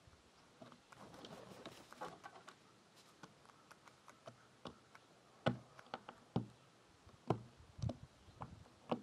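A crow pecking at and picking up peanuts on a wooden platform feeder: irregular faint taps and clicks of beak on nuts and boards, with a few sharper knocks in the second half.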